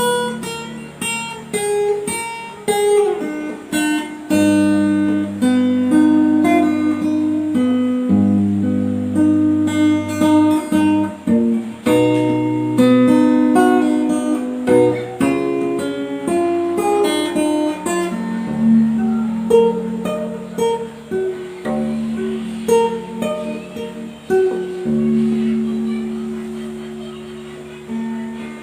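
Background instrumental music: a plucked guitar melody of quick, fading notes over lower held notes.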